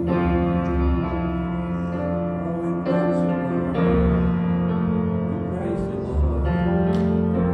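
Piano playing slow, sustained chords as an instrumental interlude, a new chord struck every one to three seconds.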